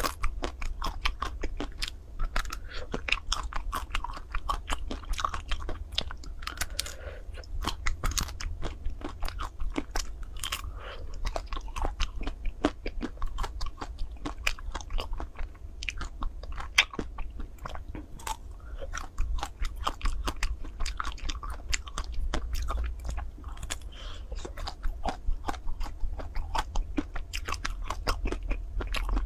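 Close-up biting and chewing of a chocolate-coated ice cream bar, the crisp chocolate shell cracking in many quick, irregular crunches.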